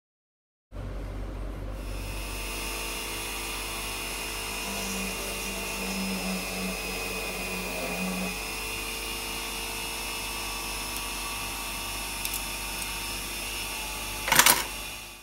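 Small SUROM mini bench drill press running with a steady high whine, starting about a second in. A short, loud knock comes about a second before the end.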